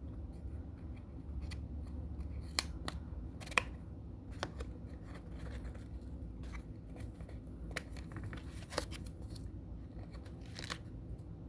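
Sharp plastic clicks of keycaps on a mechanical keyboard, coming singly at irregular intervals about once a second, over a low steady hum.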